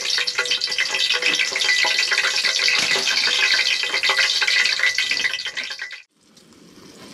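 Hot cooking oil in a frying pan crackling and spattering loudly, the sign that the oil is hot enough to fry fish. It cuts off about six seconds in, and a quieter, steady sizzle follows.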